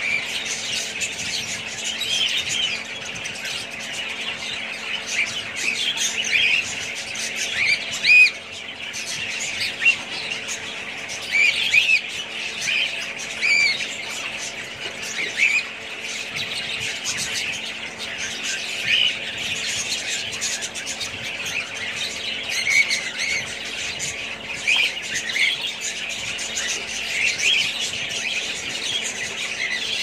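A flock of budgerigars chattering continuously, many short chirps and squawks overlapping, with a few sharper calls standing out. A faint steady hum lies underneath.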